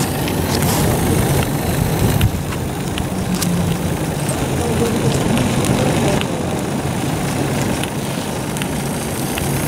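Live-steam model truck running as it drives over paving, a steady mechanical sound with scattered light clicks.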